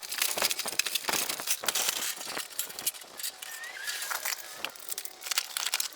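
An irregular clatter of many light knocks and clicks, thin and bright with almost no low end.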